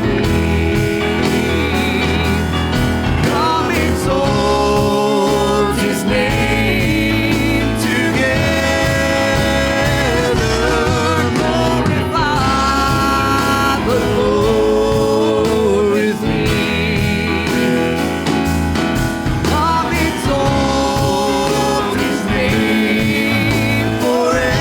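Live worship band music: an instrumental passage with a wavering, vibrato lead melody over a full band, without sung words.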